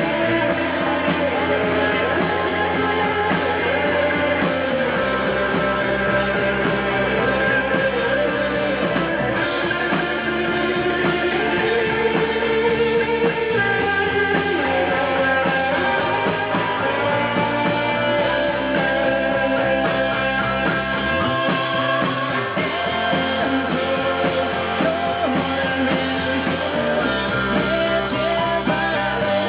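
A rock band playing a song, with guitar prominent and a singing voice.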